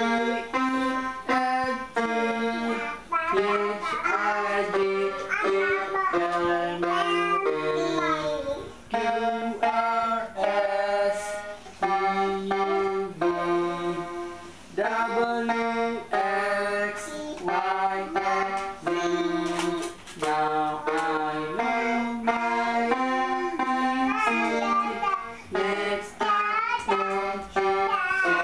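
Portable electronic keyboard playing a simple melody, one note after another, with a voice singing along at times.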